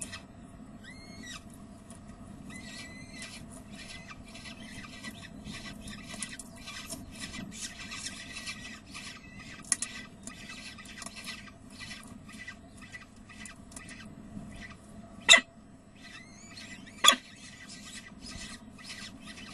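Adult peregrine falcon tearing prey and feeding its downy chicks on gravel: dense rapid scraping and clicking, with a couple of short chick peeps about one and three seconds in. Two sharp, loud clicks come near the end, about two seconds apart.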